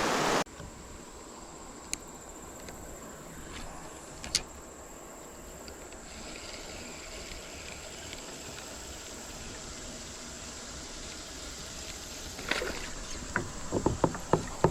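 Rushing creek water that cuts off suddenly within the first half second, then faint outdoor quiet with a steady high-pitched insect drone, two sharp clicks, and a quick run of clicks and knocks near the end.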